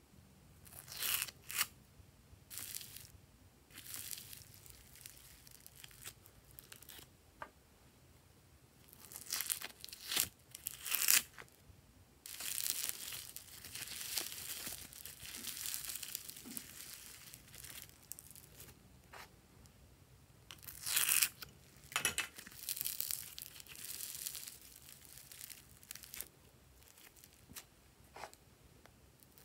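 Foam-bead slime (floam) being squeezed, stretched and pulled apart by hand, its beads giving a crunchy, crackling tear. The crackles come in irregular bursts, the loudest about a second in, around ten seconds in and around twenty-one seconds in, with a longer stretch of steady crackling in the middle.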